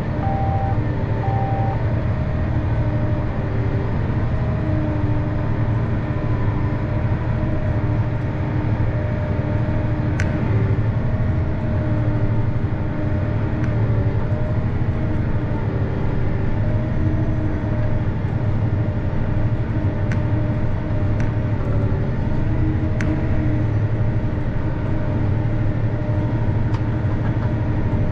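Tractor engine running steadily under load while pulling a planter, heard from inside the cab. Two short electronic beeps sound at the start, and a few faint clicks come later.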